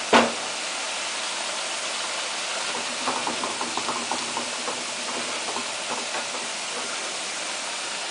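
Broccoli, onions and mushrooms sizzling in a hot stainless-steel wok, a steady frying hiss, as they are stirred with a wooden spatula. A sharp knock comes right at the start, and light scraping clicks of the spatula in the middle.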